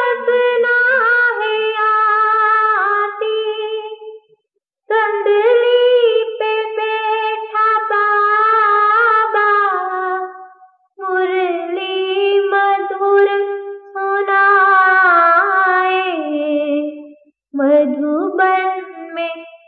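A woman singing a Hindi devotional song without accompaniment. She holds long, wavering notes in phrases of about five to six seconds, with brief breaks between them.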